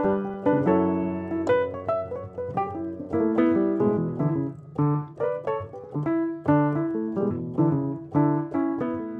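Background music: a piano playing a continuous run of notes and chords.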